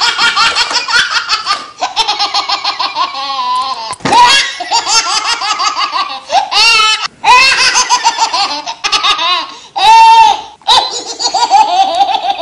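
Loud, hearty laughter in repeated bursts that break off and start again several times.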